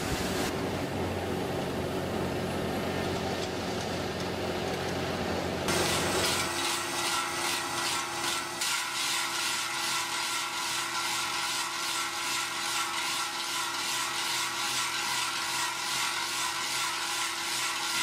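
Manhole-cutting machine's large rotating cylindrical cutter grinding a ring through road asphalt around a manhole cover. About six seconds in the sound changes to a steady hum with a regular, pulsing scrape.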